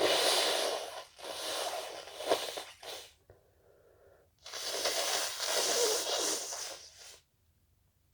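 A person with a cold making loud, noisy bursts of breath through the nose: about a second of it at the start, a longer one with a sharp peak in the middle, and another lasting nearly three seconds from about four and a half seconds in.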